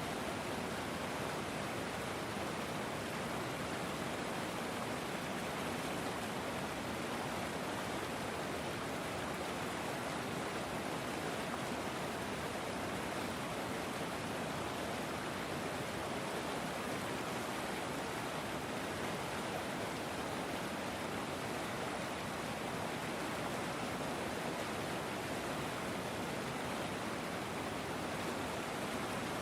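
A river flowing: steady, even rushing of running water with no change.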